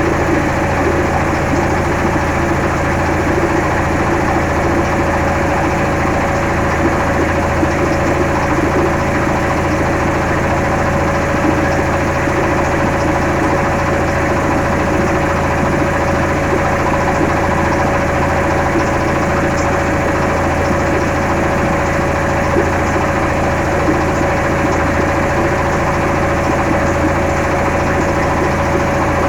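An engine running steadily at a constant idle-like pace, with an even low rumble and a fixed hum that neither rises nor falls.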